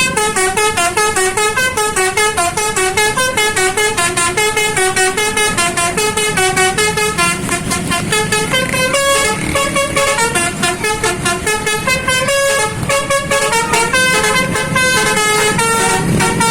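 Indonesian 'basuri' multi-tone bus horn playing a tune in short, choppy notes, about four or five a second, stepping up and down in pitch; the uploader calls it choking.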